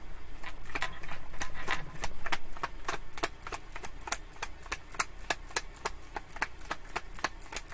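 A tarot deck being shuffled by hand: a steady run of light card clicks and slaps, about five a second, busier and louder in the first couple of seconds.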